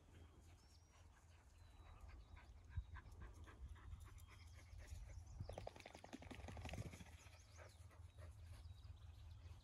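Near silence: faint outdoor ambience with a low steady rumble. A short run of quick soft pulses comes a little past halfway.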